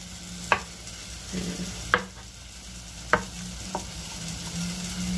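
A knife tapping on a cutting board, four sharp knocks about a second apart, as soft silken tofu is cut into pieces. Underneath, tomatoes sizzle faintly as they fry in a little oil in a pan.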